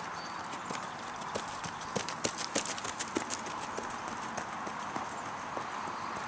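Hoofbeats of a ridden Peruvian Paso horse on sand footing: quick, sharp footfalls, loudest and most frequent in the middle, then fewer and fainter as the horse moves away.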